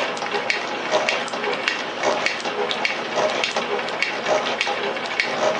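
Rhodes metal shaper cutting: the ram strokes steadily back and forth, with a sharp clack repeating at a regular beat over the machine's steady running noise.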